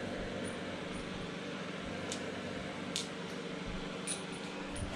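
A steady low mechanical hum, with a few light clicks and crinkles as a plastic bag of small exhaust-mounting hardware is handled, about two, three and four seconds in.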